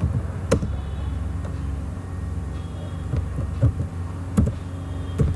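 A steady low hum with a few separate sharp clicks of computer keyboard keys being typed.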